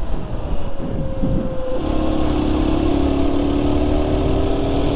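Aprilia RS 125's 125 cc single-cylinder four-stroke engine heard from the rider's seat with wind noise. For about two seconds its note falls gently as the bike slows, then it pulls harder in fourth gear, a little louder, with a slowly rising note as the bike accelerates.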